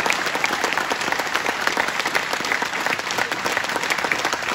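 Crowd applauding: many hands clapping steadily and densely.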